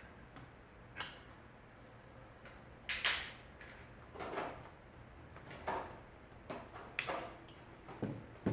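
A smartphone being set on and handled in an LCD disassembly jig: a series of separate knocks and clacks roughly a second apart, the loudest about three seconds in with a brief scraping tail.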